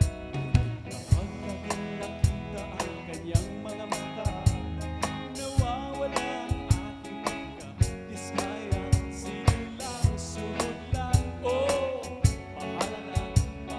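Live band playing an instrumental passage of a pop love-song medley, the drum kit keeping a steady beat with crisp cymbal hits several times a second over sustained band chords.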